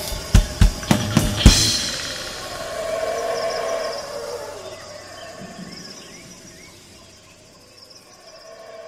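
The closing bars of a band's song: a run of about five evenly spaced drum hits ending in a cymbal crash about a second and a half in, then the instruments ring on and slowly fade out.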